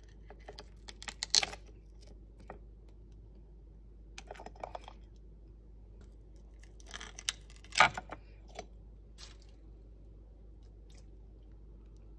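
Oyster shells clicking and scraping against each other and the ceramic plate as the top shells of air-fried oysters are pried off by hand, in a few short scattered clusters, the loudest knock a little before eight seconds in.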